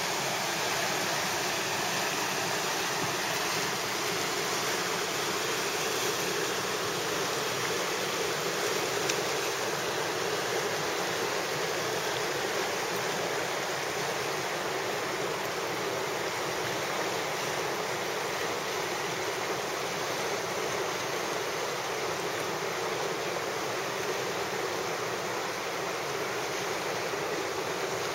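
River rapids rushing steadily, white water running over rocks.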